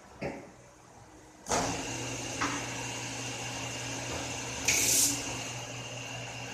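CNC metal-spinning lathe starting up about a second and a half in and then running steadily with a low hum and a steady high whine, as it spins an aluminium disc into a light-fitting canopy. A short click follows soon after the start, and a brief loud hiss comes near the end.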